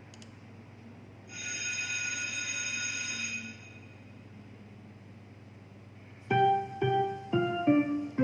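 Start of a recorded children's song: about a second in, a high steady tone lasting about two seconds, then near the end a piano intro of short separate notes.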